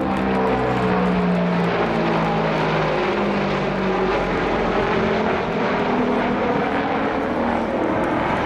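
Antonov An-22's four Kuznetsov NK-12 turboprops with contra-rotating propellers, heard in a flypast overhead: a loud, steady propeller drone of several humming tones over the engines' roar.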